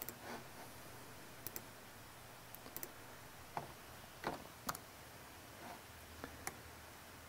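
Faint, irregular clicks of a laptop's keys and trackpad, about a dozen in all.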